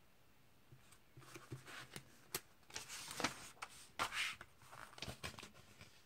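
Comic book pages being turned and handled: a run of quick paper rustles and swishes starting about a second in and dying away near the end.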